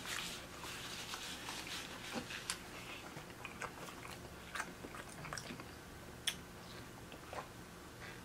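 Close-miked eating of seafood: quiet chewing with scattered short, sharp clicks and crunches.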